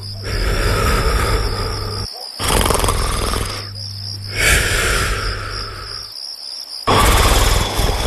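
Cartoon snoring loop: slow, rattling snores, each breath in followed by a whistling breath out that falls in pitch, one snore about every four and a half seconds. Crickets chirp steadily underneath.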